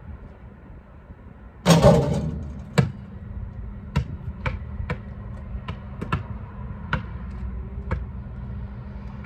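A loud rattling bang about two seconds in, then a basketball bouncing on asphalt, about nine uneven bounces over the next five seconds, over a steady low rumble.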